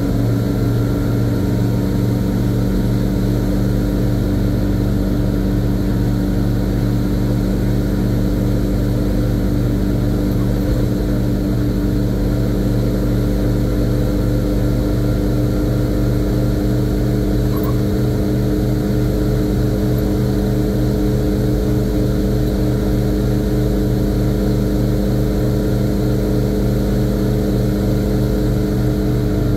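1970 Chevrolet C50 dump truck's engine running steadily at a constant road speed, heard from inside the cab, with an even, unchanging drone.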